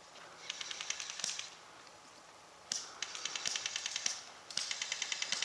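Automatic airsoft gun firing three bursts of rapid, evenly spaced clicks, each about a second long.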